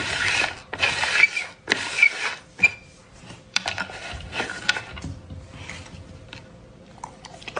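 Plastic lids being slid and scraped across a tabletop in quick strokes, five or six of them in the first two seconds, followed by a few sharp clicks and taps and quieter rubbing as the lids are handled.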